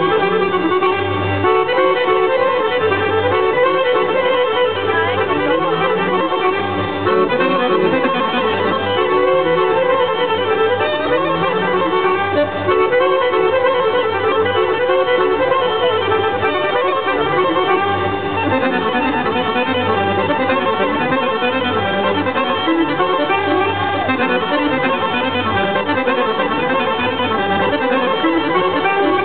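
Accordion playing a traditional folk dance tune, with a steady bass beat under the melody.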